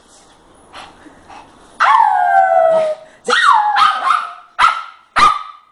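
Small Shih Tzu dog vocalizing: a long whining yelp that falls in pitch about two seconds in, a second one about a second later, then two short sharp barks near the end.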